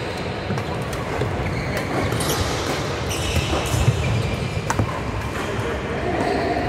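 Badminton rackets hitting shuttlecocks: a few sharp clicks, the clearest a little before five seconds in, over the steady background noise of a large indoor sports hall with several games going on.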